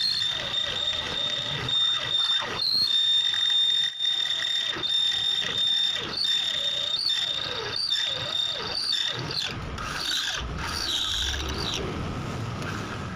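Corded Hasston electric drill in a drill stand boring a 12 mm hole through 5 mm thick steel plate, the bit squealing with a steady high tone that breaks off briefly about once a second as it bites. Near the end the squeal stops and a rougher, lower grinding takes over. The plate is hard going: very tough steel for the bit.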